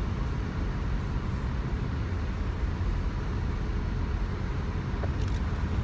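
Steady road and engine noise of a car on the move, heard from inside the cabin: a low rumble with an even hiss above it.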